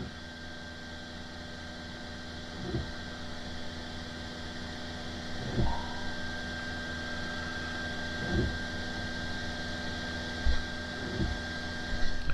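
Bambu Lab X1 Carbon 3D printer running during a filament change: a steady hum and a thin whine from its fans and motors, with a soft pulse about every three seconds as the extruder feeds and purges the new filament a little at a time.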